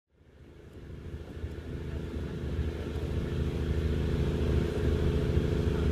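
A boat's engine running steadily under way, a low drone that fades in from silence over the first couple of seconds.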